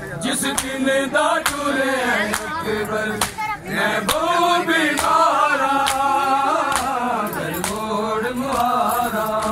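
Men chanting a noha together, a mourning lament sung in unison. Sharp slaps of hands on bare chests (matam) keep a beat about twice a second.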